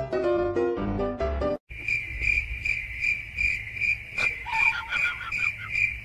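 Piano-like music stops abruptly, then cricket chirping starts: a steady high trill pulsing about three times a second.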